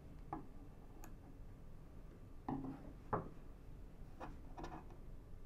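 A handful of short, soft knocks and clicks of a metal cutting blade and hands on a wooden cutting board while trimming a strip of softened kanpyo (dried gourd), the loudest about three seconds in.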